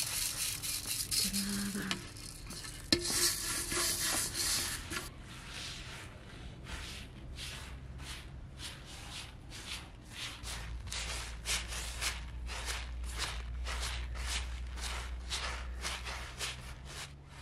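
Dry long-grain rice rustling on a woven plastic sack sheet: a continuous hiss of shifting grains for the first few seconds, then hands sweeping and spreading the rice in repeated rasping strokes, about two a second. A faint low hum is underneath from about the middle on.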